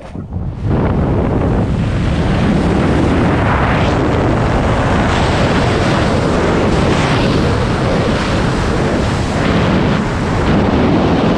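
Loud wind rushing over the microphone in wingsuit BASE flight, swelling within the first second after the exit and then holding steady at flying speed.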